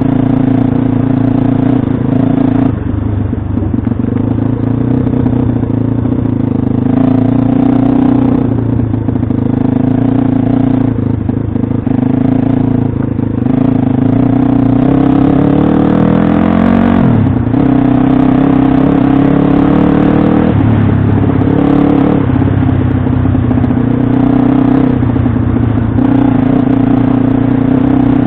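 Pit bike engine running hard, its revs rising and falling with the throttle; about two-thirds of the way through the revs climb steeply and then drop off sharply.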